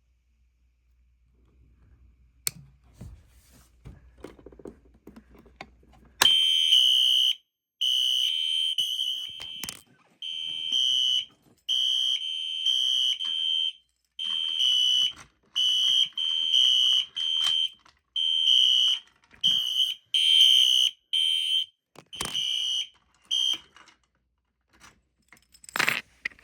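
Fire alarm going off about six seconds in: a loud, high electronic tone sounding in pulses of about half a second to two seconds with short gaps. A short loud burst of noise comes near the end.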